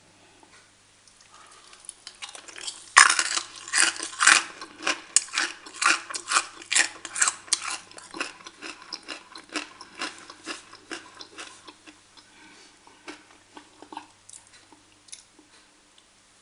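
Crisp roast pork crackling being crunched: a rapid, irregular run of sharp cracks that starts suddenly about three seconds in, is loudest at first, and thins to scattered crackles after about twelve seconds.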